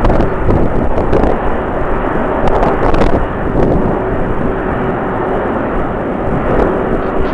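Jet airliner engines running, a dense, steady noise with a faint hum, mixed with strong wind buffeting the microphone.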